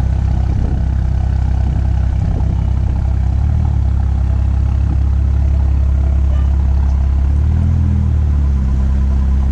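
BMW X4 M40i's turbocharged inline-six running at low revs while the car is backed up slowly. The revs rise slightly a few seconds in and again briefly near the end.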